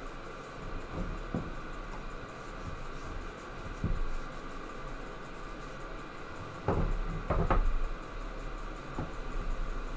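A wooden cutting board knocking lightly against the wooden bench top as it is handled and wiped with a rag, a few scattered knocks with the loudest cluster about seven seconds in, over a steady low hum.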